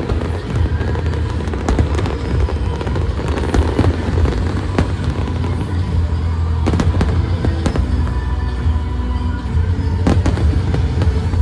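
Aerial fireworks going off, with many sharp bangs and crackles, over loud music playing throughout.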